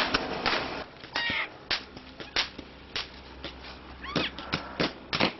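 Ground firework fountain hissing and crackling for about a second, then scattered sharp pops and cracks, with two short squealing glides.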